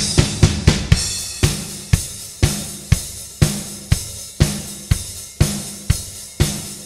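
Drum kit played: a quick run of hits at the start, then a steady beat with strong strokes about twice a second, each with cymbals washing over it.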